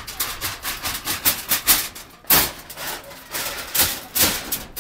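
Corrugated iron sheets rattling and clanging as a small shack is torn apart by hand: a quick, uneven series of metallic crashes, the loudest about two and a half seconds in.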